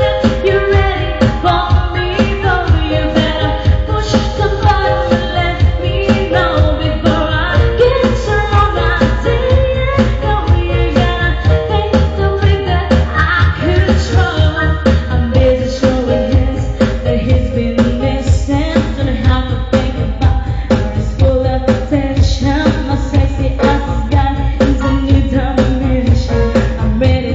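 Loud pop song with singing over a steady beat.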